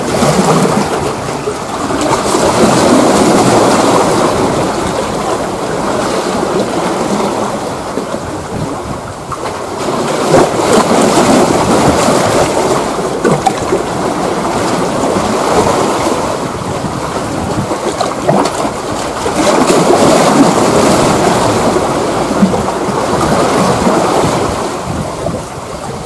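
Sea waves washing against the shore rocks in three slow surges, each building and easing over several seconds.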